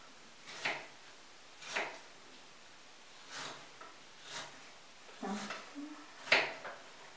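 Kitchen knife slicing peeled apples into thin slices on a wooden cutting board: separate knocks of the blade on the board, about one a second, the last one the loudest.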